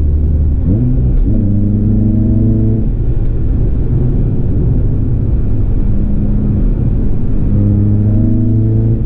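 Renault Clio 182's 2.0-litre four-cylinder engine through a decat Scorpion exhaust, heard from inside the cabin while driving: the engine note rises about a second in, then holds steady, with road rumble beneath.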